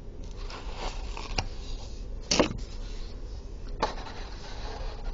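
Paper sheets being handled and swapped, a few short rustles and slides, the loudest about two and a half seconds in and another near four seconds.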